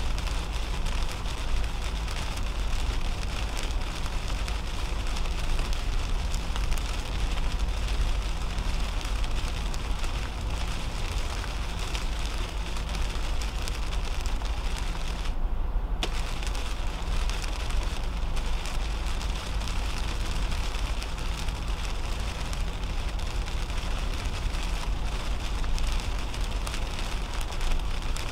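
2010 Toyota Camry driving at highway speed on a wet road, heard inside the cabin: a steady low road rumble with the hiss of tyres on wet pavement and rain spattering on the windshield. The hiss drops away for about half a second a little past the middle, as the car passes under an overpass.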